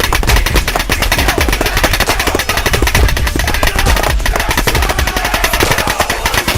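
Piranha GTI Plus electronic paintball marker with a Rampage board firing in an unbroken rapid string of shots, many a second, in full-auto or ramping fire.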